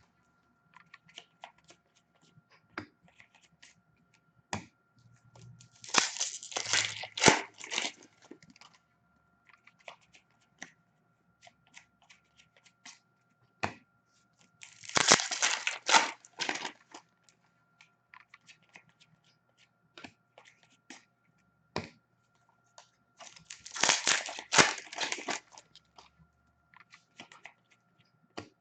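Foil hockey card packs being torn open and their wrappers crumpled, three times about nine seconds apart, with small clicks and rustles of cards being handled in between.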